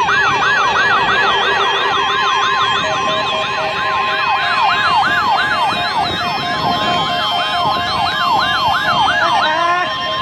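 NOAA weather radio receivers sounding their alert alarms for the weekly test: a falling siren whoop repeating nearly three times a second, layered with steady electronic tones and a pulsing beep. The whooping stops just before the end.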